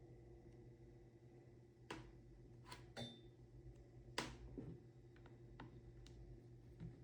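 Near silence over a low steady hum, broken by a few faint clicks and taps, the loudest about two and four seconds in.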